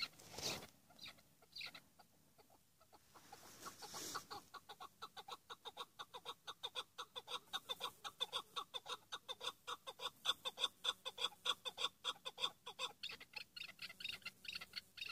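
Chukar partridge (keklik) calling: a long rapid run of short chuck notes, several a second, that starts about four seconds in and keeps going, after a couple of brief noisy bursts.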